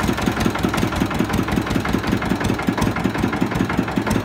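Sugarcane juice crusher running with a steady, rhythmic mechanical beat of several pulses a second while cane is pressed through its rollers.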